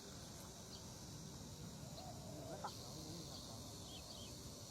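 Faint outdoor ambience with a steady high hiss, and a few faint distant animal calls about two to three seconds in.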